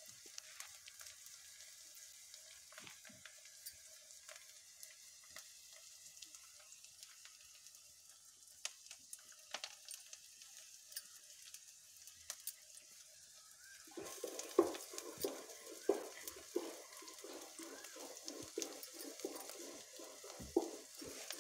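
Food sizzling in a kadhai (wok) over an open fire: a faint steady hiss with scattered crackles. About 14 seconds in, a ladle starts stirring and scraping the food in the pan, a fast run of repeated strokes that is louder than the sizzle.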